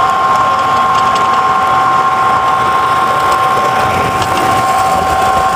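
Electric toy trains running on three-rail tinplate track: a steady whine of motors and gears over the rumble of wheels on the rails.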